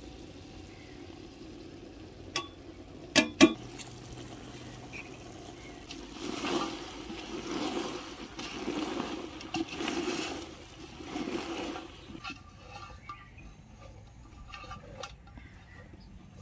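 Cooking sounds at a curry pot: a few sharp metal clinks, then about six seconds of rushing noise rising and falling in waves, then light clinks.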